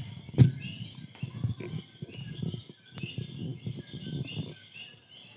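Chorus of coquí frogs: many short, high chirps repeating several times a second, over a low murmur of voices, with a single knock about half a second in.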